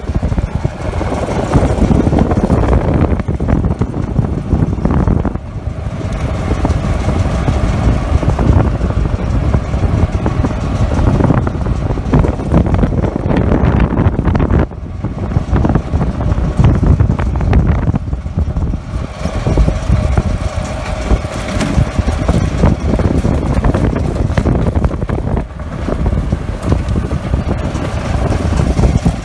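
Wind buffeting the phone's microphone while riding in a moving open vehicle, with the vehicle's running noise underneath. It is a loud, gusty noise that swells and dips unevenly.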